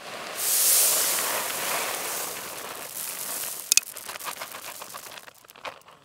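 Shelled corn kernels poured from a bag onto grass: a loud pattering rush that sets in about half a second in, then thins to scattered ticks as the pour trails off near the end.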